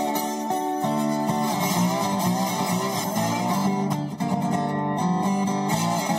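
Instrumental guitar break in a song, with no singing: strummed guitar under a melody line whose notes bend in pitch.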